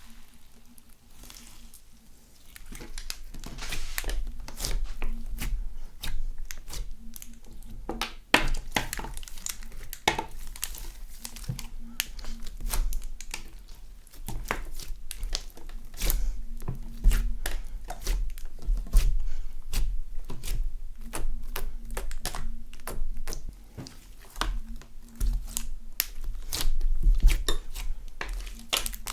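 Slime being kneaded and stretched by hand, with a dense, uneven run of wet pops and crackling clicks.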